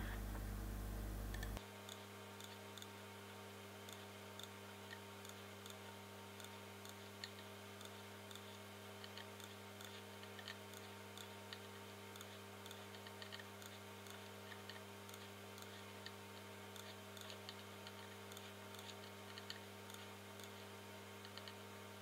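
Computer mouse clicking now and then, in faint irregular clicks over a steady low electrical hum; a louder part of the hum drops away about a second and a half in.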